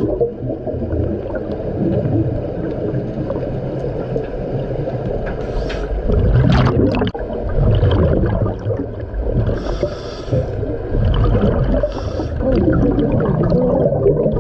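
A diver's helmet underwater: air flowing and exhaled bubbles gurgling and rumbling, rising and falling every couple of seconds with his breathing.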